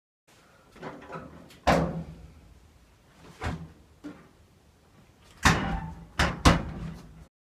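A door being banged and clunked shut several times: about five sharp bangs with softer knocks between them, the loudest about two seconds in and three close together near the end.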